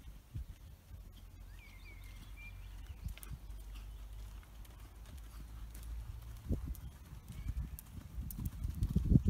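A ridden Exmoor pony's hoofbeats on the arena's chip surface, heard as dull thuds that start about two-thirds in and grow louder near the end. A steady low wind rumble on the microphone runs underneath.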